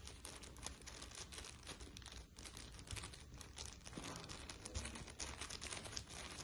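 Thin plastic bag crinkling and rustling as fingers knead and mash crumbled boiled egg yolk inside it, a quick, irregular run of small crackles.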